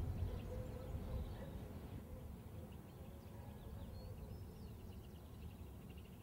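Faint outdoor ambience: birds chirping in short, quick repeated notes with a few thin whistles, over a low steady rumble.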